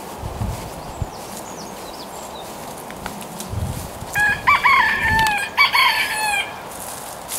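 Chicken calling: a run of loud, pitched calls in two groups beginning about four seconds in and lasting some two seconds, the longer calls sliding down in pitch at the end.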